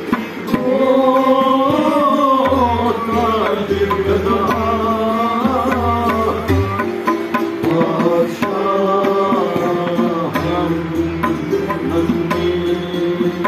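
Kashmiri Sufiana ensemble playing: tabla keeping a steady beat with a deep bass-drum pulse that comes in a couple of seconds in, with santoor and a long-necked stringed instrument under a gliding melody that rises and falls in phrases over a steady drone.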